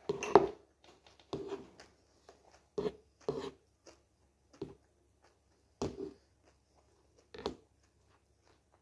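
A toddler feeding himself with a spoon: about ten short, separate sounds of the spoon knocking and scraping in the bowl, with brief small vocal sounds from the child.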